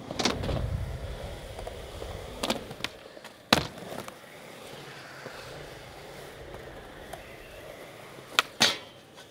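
Skateboard wheels rolling on smooth concrete, with sharp clacks of the board hitting the ground: the loudest about three and a half seconds in, and two quick clacks near the end.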